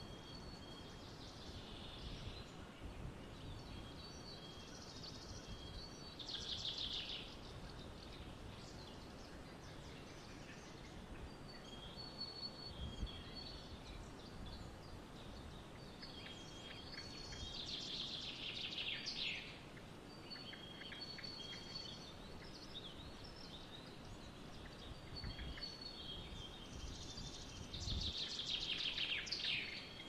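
Bald eagle calling from the nest: three bouts of high-pitched chittering, each a quick run of notes falling in pitch, about ten seconds apart. Short repeated high whistles sound between them, over a steady outdoor background hiss.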